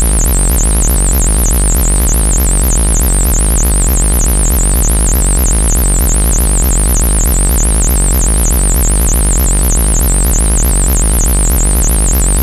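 Loud electronic music: a high, rapidly wavering synthesizer tone over a steady deep bass.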